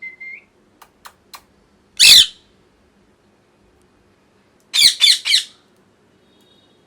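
Ringneck parrot squawking: one loud, harsh squawk about two seconds in, then three quick squawks in a row around five seconds. A soft chirp and three faint clicks come before the first squawk.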